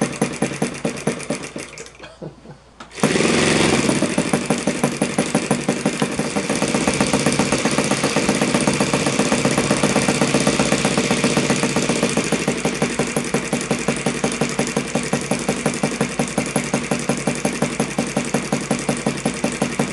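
Yamada YS FZ-53 single-cylinder four-stroke glow model engine idling low, around 1,300 rpm, on an O.S. G5 glow plug kept powered, in a steady, regular run of firing pulses. The sound dips briefly about two seconds in, then comes back louder and holds steady.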